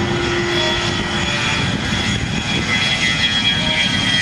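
The twin General Electric TF34 turbofan engines of an A-10C Thunderbolt II whine as the jet rolls along the runway. A high steady whine sinks slowly in pitch over a low rumble.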